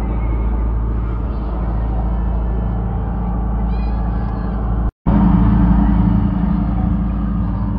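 Steady low drone of a ship's engine running, with faint voices behind it. The sound drops out for a moment about five seconds in and comes back louder.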